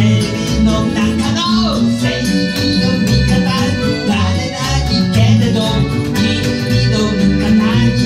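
A small acoustic band playing a song: a man sings a Japanese-language melody over accordion and strummed acoustic guitar, with a steady bass line underneath.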